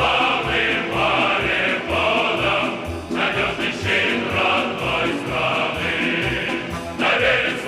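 Choir singing with instrumental backing: a song about submarine crews.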